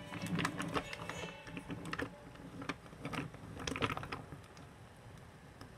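Wooden Railway toy engine and coaches pushed by hand along wooden track: wheels rolling with a low rumble and irregular clicks and clacks as they cross the track joints, quieter in the last second or two.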